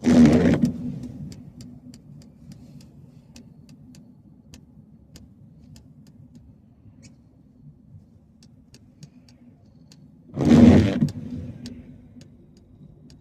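Steady low drone of a moving truck heard from inside the cab. Two sudden loud rushing bursts break in, one at the start and one about ten seconds in, and each dies away over about a second. Faint scattered ticks are heard in between.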